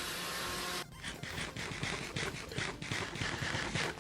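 A steady sound cuts off abruptly about a second in and gives way to rapid, irregular munching: a quick run of short, crackly chewing smacks, several a second.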